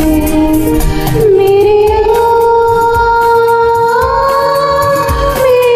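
A woman sings a Hindi film duet over a karaoke backing track with a beat, recorded through a wired earphone microphone. She holds one long note that steps up in pitch about four seconds in and falls again near the end.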